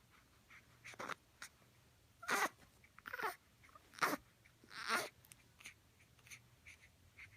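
A pet making a handful of short, breathy vocal sounds, about five over several seconds, with quiet gaps between them.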